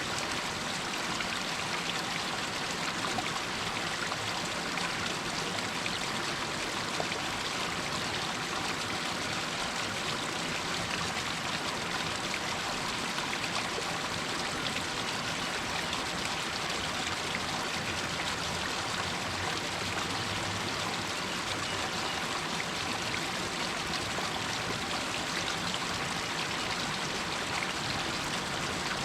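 Small stream of water running down a rocky hillside, a steady splashing trickle over rocks.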